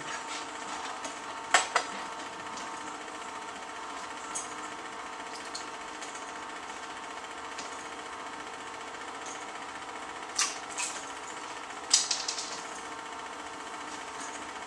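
Film projector running with a steady mechanical whir and clatter, with a few sharp clicks: two about a second and a half in, two more around ten and twelve seconds.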